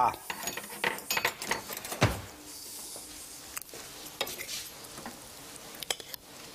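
China plate and metal serving spoon clattering and clinking as food is dished up from a pan onto the plate, with a heavier knock about two seconds in and scattered lighter clinks after.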